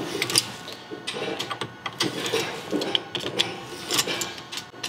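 A wrench turning the threaded side adjuster of a Toyota third-member differential, with irregular metal-on-metal clicks and scraping.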